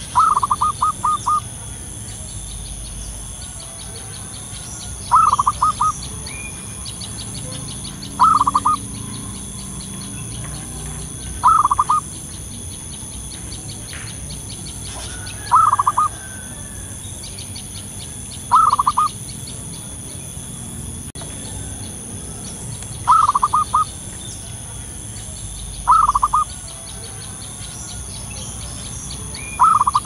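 Zebra dove calling: short phrases of quick cooing notes, repeated about every three seconds, nine times. A faint, fast, high ticking runs behind them.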